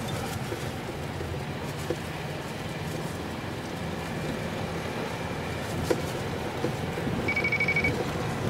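Car cabin noise from inside a taxi driving slowly through city streets: a steady low engine and road rumble, with a couple of light knocks and a brief high-pitched tone near the end.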